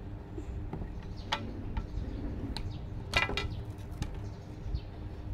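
A few light clicks and taps, with a short cluster of them about three seconds in, over a steady low hum.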